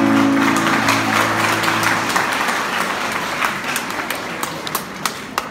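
Audience applauding as the last held note of the music dies away; the applause thins to scattered individual claps near the end.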